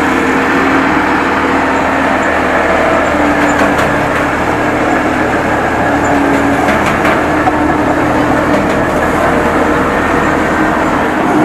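A large engine running steadily and loud close by, with a constant hum that shifts slightly in pitch now and then.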